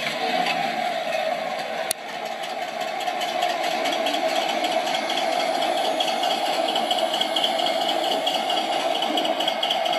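Simulated tank engine running, played by the Clark TK24S sound unit through the small onboard speaker of a Torro Tiger 1 RC tank, with the rattle of its tracks and drive as it moves. There is a single sharp click about two seconds in.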